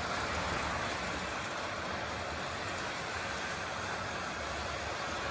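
Model electric trains running on the layout's track: a steady rolling rumble of wheels and motors.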